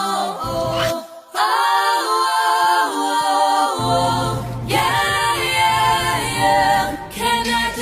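Background music: several voices singing wordless harmonies, with a brief break about a second in and a low bass part coming in partway through.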